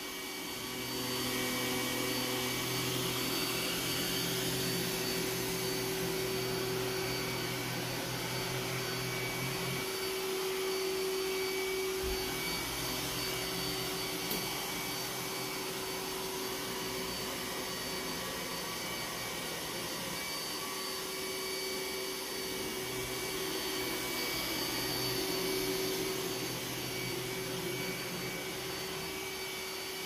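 iRobot Roomba s9 robot vacuum running on its high power setting over thick, high-pile carpet: a steady motor-and-brush noise with a constant whine over it, getting louder about a second in and then holding steady with small swells.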